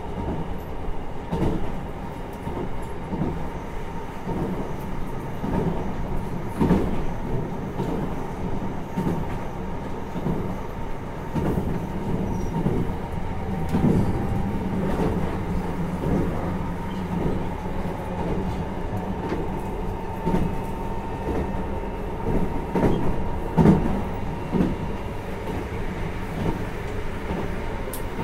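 JR Hokkaido 733 series 3000-subseries electric multiple unit running at speed, heard from inside a car: a steady rumble of wheels and running gear with a constant hum, broken by irregular knocks every second or two as the wheels cross rail joints.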